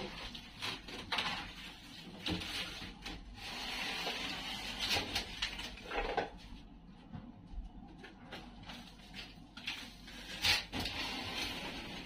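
Irregular wooden knocks and clatter with spells of scraping as a wooden birdcage is worked apart into two sections.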